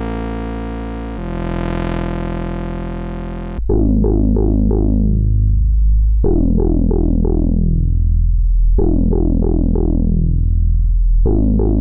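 Mutuca FM analog synthesizer playing: a held, buzzy tone for the first few seconds, then, after a sudden change, a rhythmic bass line of short plucked notes, about two or three a second, each quickly losing its brightness, over a deep sustained bass note that steps to a new pitch about every two and a half seconds.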